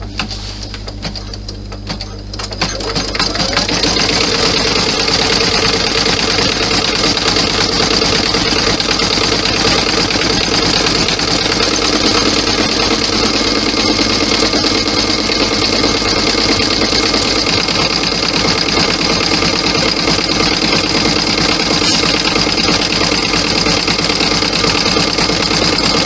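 Embroidery machine starting up about two to three seconds in, then stitching steadily at an even pace.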